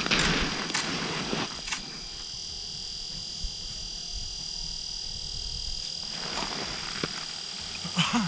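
Rustling of a winter snowsuit and handling of fishing gear, loudest in the first second or so and again briefly near the end, under a steady faint high-pitched tone.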